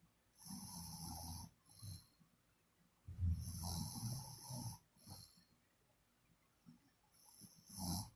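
A sleeper snoring: two long snores about two and a half seconds apart, each followed by a short breath out, and another short breath near the end.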